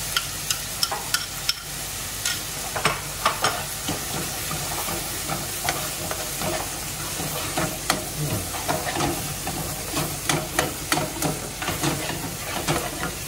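Chicken, bacon and mushroom sizzling in a frying pan while a metal slotted spoon stirs and scrapes through them, clinking sharply against the pan and bowl many times.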